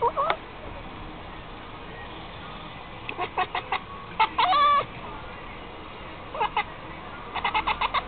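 Grey domestic cat chattering: runs of short, sharp chirps, with one longer chirp near the middle and a fast run of chirps near the end. This is the excited jaw-quivering call cats make when watching birds.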